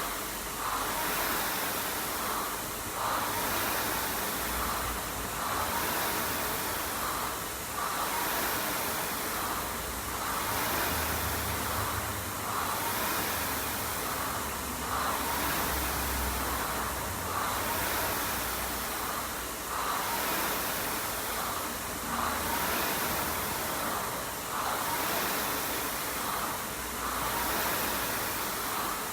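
Air-resistance rowing machine's fan flywheel whirring under steady rowing, swelling with each stroke about every two and a half seconds.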